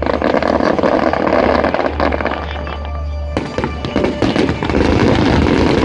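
Fireworks display: a dense, continuous crackle of aerial shell bursts and crackling glitter effects. There is a brief lull about two and a half seconds in, then another loud run of crackling bursts about a second later.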